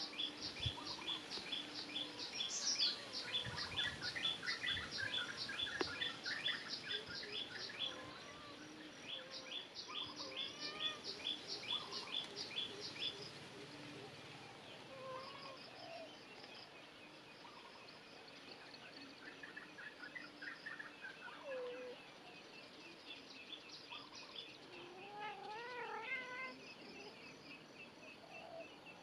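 Baby chicks cheeping in a fast, even run of short high peeps, about four a second, louder in the first half and fainter later. A kitten meows a few times over them, the clearest meows near the end.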